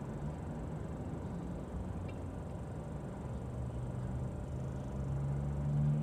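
A vehicle engine running nearby, a steady low hum that grows louder near the end.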